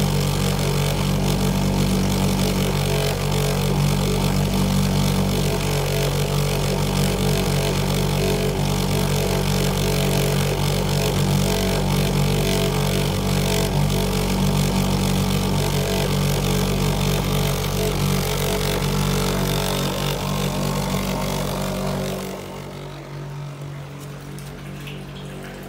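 Shurflo diaphragm pump running steadily, pulling vacuum on maple sap tubing: an even, low mechanical hum that grows fainter about 22 seconds in.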